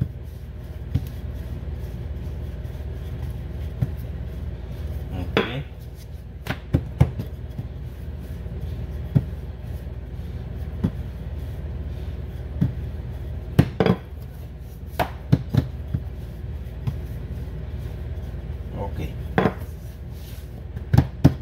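Wooden rolling pin rolling out a sheet of puff pastry dough on a countertop: a steady low rumble under irregular sharp knocks and clicks of wood on the counter, every second or two.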